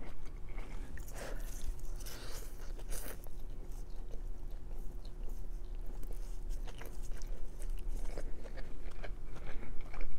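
Chewing and slurping of chow mein noodles, with wet mouth sounds and scattered soft clicks.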